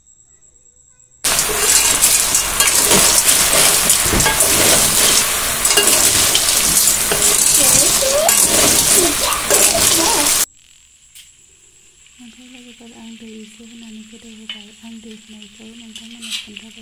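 Snails in their shells and potato chunks frying in a wok: a loud, steady sizzle with shells clinking as they are stirred. It starts suddenly about a second in and cuts off abruptly around ten seconds in, leaving a faint wavering hum.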